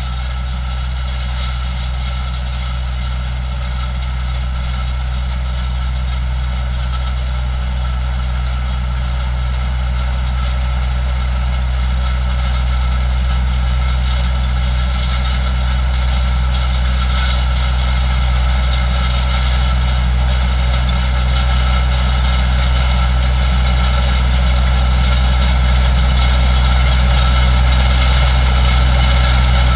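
Fendt 820 tractor's six-cylinder diesel engine running steadily under load while pulling a Väderstad roller, with a steady high whine over the low engine drone. It grows gradually louder as the tractor approaches.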